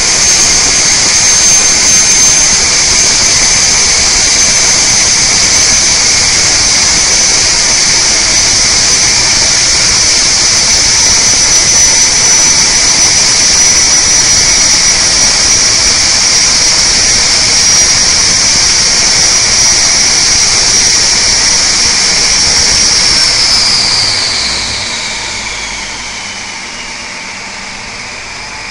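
Detroit Diesel Series 60 inline-six diesel running loaded on an engine dynamometer, with a loud, steady high turbocharger whine over the engine. About 24 seconds in the load and boost come off: the whine slides down in pitch and the sound drops away as the engine eases toward 1,000 rpm.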